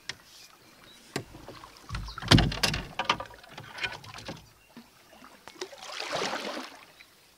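Paddling an open canoe: a wooden paddle swishing and splashing through the water stroke by stroke, with several sharp knocks, the loudest a little over two seconds in.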